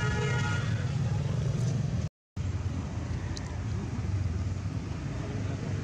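Steady low rumble throughout, with a baby macaque's brief high squeal at the very start. The sound drops out for a moment about two seconds in.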